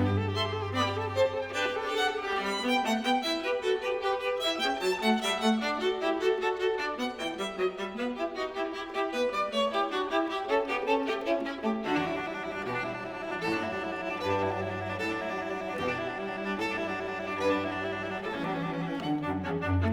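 Instrumental music led by a violin, with lower bowed strings beneath; the accompaniment fills out about twelve seconds in.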